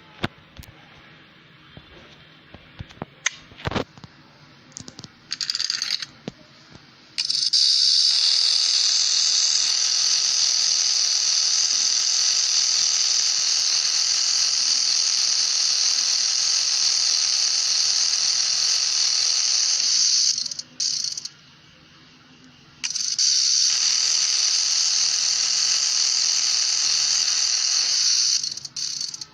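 Small electric motor of a toy machine gun running in two long stretches, a steady high-pitched rattling whirr, after a few short clicks and a brief burst as it is handled and switched.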